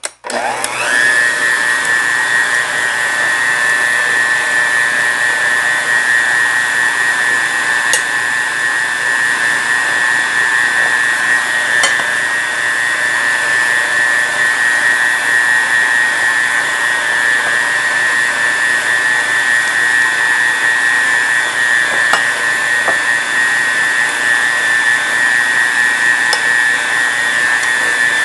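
Electric stand mixer starting up and kneading whole-wheat bread dough with its dough hook. Its motor winds up to a steady high whine and then runs evenly, with a few faint clicks.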